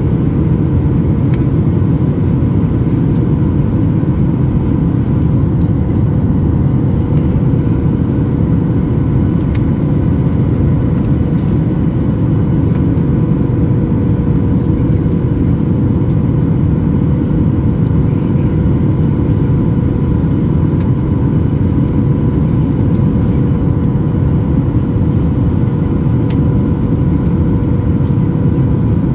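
Cabin noise of a Boeing 737 MAX 8 in cruise-like flight: the steady, deep rush of airflow and the CFM LEAP-1B engines, with a faint steady hum on top, unchanging throughout.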